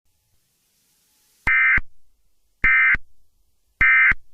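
Emergency Alert System end-of-message data tones: three identical short digital bursts, each about a third of a second long and a little over a second apart, signalling the end of the alert.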